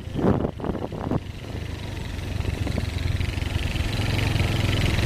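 Motorcycle engine running steadily while riding a dirt track, its hum growing gradually louder over the last few seconds.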